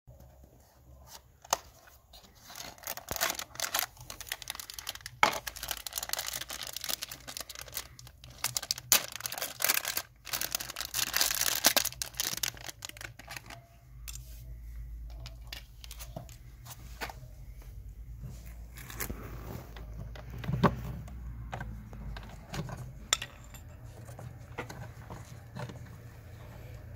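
Cardboard box and packaging being torn open, rustling and crinkling with sharp clicks for the first dozen seconds. Then quieter handling of the small parts, with a few isolated clicks.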